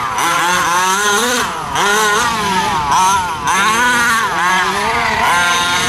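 Small two-stroke petrol engine of a 1/5-scale RC off-road truck. The engine revs up and drops back again and again as the throttle is worked, with a high, buzzing, chainsaw-like note.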